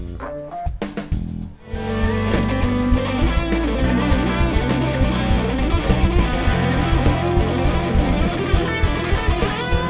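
Instrumental rock music with electric guitar and drums. It thins to a brief break about a second and a half in, then the full band comes back in.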